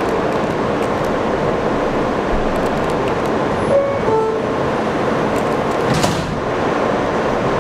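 Steady running noise of a standing NYC subway train's equipment. About four seconds in comes a quick run of short beeping tones, and about six seconds in a brief hiss.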